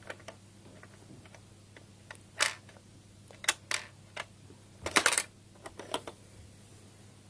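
Sharp plastic clicks and clacks of a Lego gumball machine being worked by hand: a coin put in, the lever struck and a gumball dropping out. About half a dozen separate clicks, the loudest a quick pair about five seconds in.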